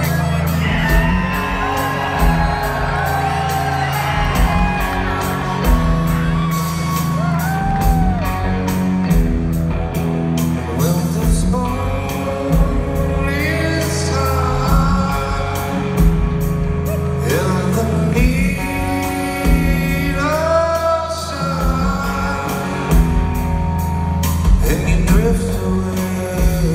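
Rock band playing live, with electric guitars, bass and drums under a lead vocal, heard from the audience in a large hall.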